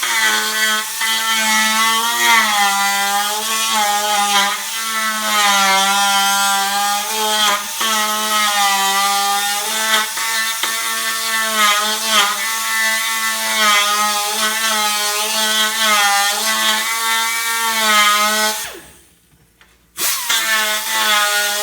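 Handheld electric power tool running under load while cleaning a metal motorcycle part, its whine wavering in pitch as it bears on the work. It stops for about a second near the end, then starts again.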